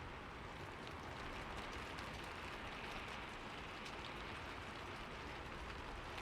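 Steady rain, an even hiss with individual raindrops ticking on a surface.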